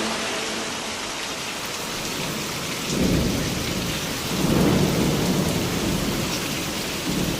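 Steady rain falling, with low rumbles of thunder swelling about three seconds in and again for about a second at four and a half seconds.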